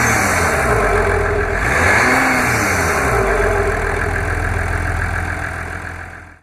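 A vehicle engine running, its pitch rising and falling once as it is revved or driven. It fades near the end and cuts off abruptly.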